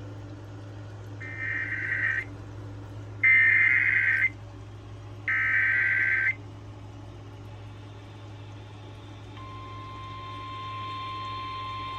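NOAA Weather Radio emergency alert header: three one-second bursts of screeching digital data tones, about a second apart, followed a little over nine seconds in by the steady warning alarm tone, all over a constant low hum from the radio. The header and alarm announce a severe thunderstorm warning.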